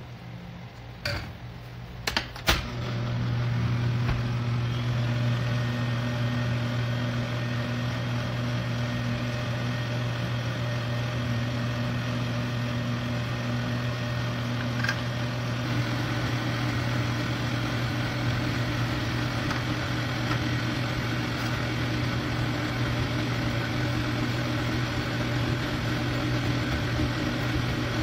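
Stand mixer starting up after a few knocks, then its motor running steadily as the dough hook kneads flour, milk and eggs into a yeast dough.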